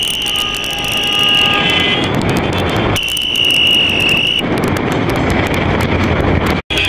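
Open-top jeep driving along a rough dirt track, a dense rumble with rattling clicks from the bumpy ground. A steady high-pitched buzz comes and goes through it, and the sound cuts out for a moment near the end.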